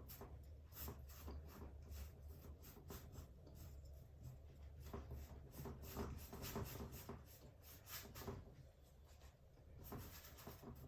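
Faint brush strokes rubbing acrylic paint across a canvas, a couple of quick strokes a second, over a low steady hum.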